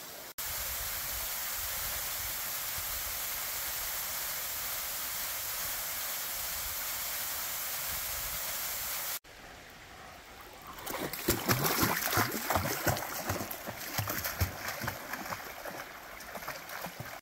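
Waterfall in heavy flow, a steady even rush. After a cut, a louder and more uneven rush with many quick crackles that swell and fade.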